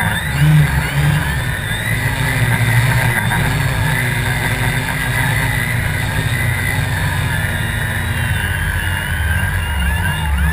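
Quadcopter electric motors and propellers running, sped up, with several tones wavering up and down together over a low rumble.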